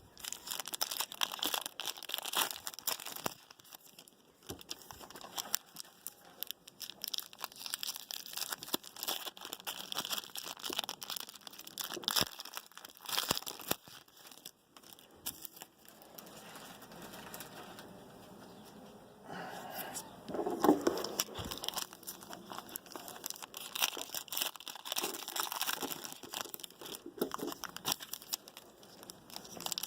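Trading card pack wrappers crinkling and tearing as football card packs are opened and handled, in irregular crackles with a quieter stretch a little past halfway.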